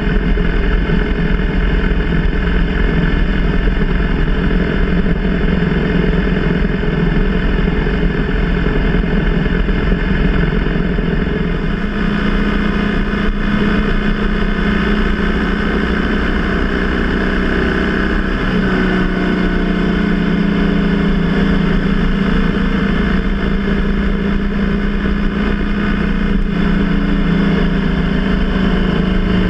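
BMW R 1200 GS flat-twin boxer engine running at road speed, mixed with steady wind rush. The engine note shifts a little from about halfway through.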